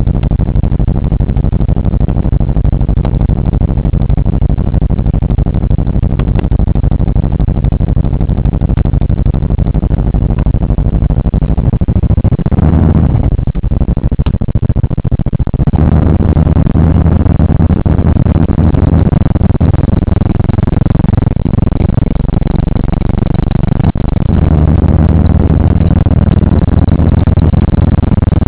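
Engine and road noise inside the cabin of a 1979 Oldsmobile while driving, a steady low drone. It shifts briefly about halfway through, then drones on a little louder.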